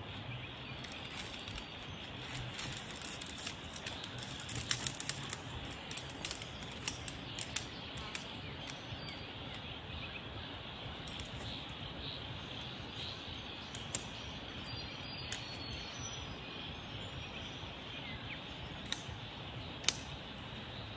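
Sharp metallic clicks of tent pole sections snapping together as the poles are assembled: a quick flurry about four to eight seconds in, then a few single clicks later. Underneath runs a steady outdoor hiss with birds chirping.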